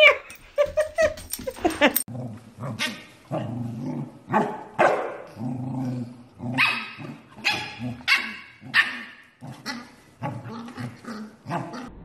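Corgi puppy barking: a long string of short barks, about two a second, from about two seconds in.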